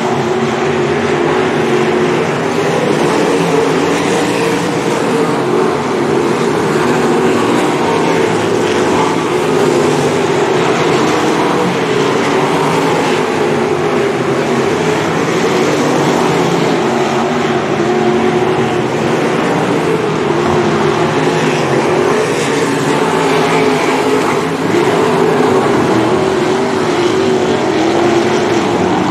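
A field of 305 sprint cars' small-block V8 engines running on a dirt oval, several heard at once, their overlapping notes wavering up and down as the cars circle the track.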